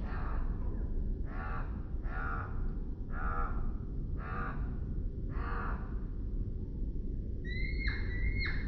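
Crow cawing over and over, harsh calls coming singly or in pairs about once a second, over a steady low rumble. Near the end come a few short, high-pitched chirps.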